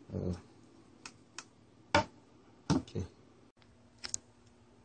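Handling noise: about half a dozen sharp clicks and knocks of a plastic clamp meter being picked up and moved on a wooden desk, the loudest about two seconds in. A faint steady hum comes in past the middle.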